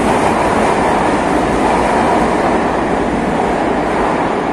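Metro train running in the station, a loud steady rumble and rush from wheels on rails.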